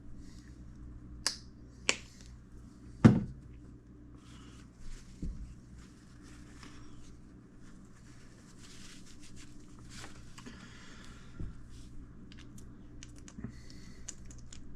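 Small parts being handled on a workbench while an RC shock is filled with oil. There are a couple of sharp clicks in the first two seconds and one loud knock about three seconds in, like something set down hard. After that come a few lighter knocks and faint rustling handling noise.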